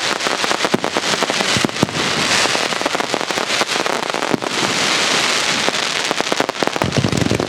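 Aerial fireworks show crackling continuously: a dense, rapid rattle of many small cracks and reports. Deeper, heavier bangs come in near the end.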